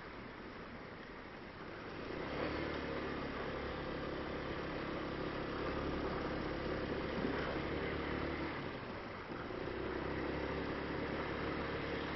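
Motorcycle engine running under way. Its note comes up strongly about two seconds in and dips briefly near nine seconds before picking up again.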